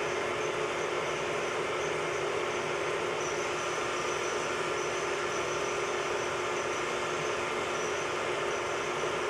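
Metal lathe running steadily, a constant mechanical hum with a fixed high whine from its motor and gearing.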